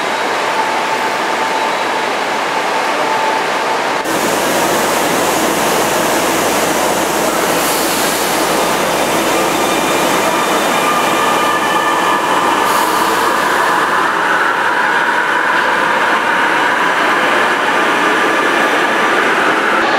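Metro train in an underground station: steady rumble and hiss, with a motor whine rising in pitch over the second half. The first few seconds are the steadier, lighter hum of the station concourse before it changes suddenly.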